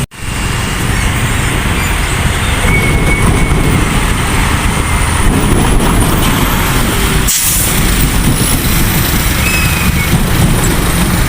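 Heavy trucks passing close by in loud road traffic, engines and tyres running steadily, with a short hiss of air brakes about seven seconds in.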